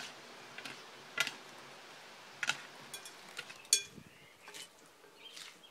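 Metal utensils clinking against a salad bowl as a salad is tossed: scattered sharp clinks, the loudest right at the start and about three and a half seconds in.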